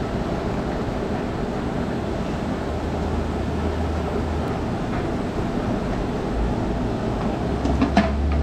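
A steady low roar, and near the end a few sharp metal clanks as a pressure-cooker lid is fitted onto the pot.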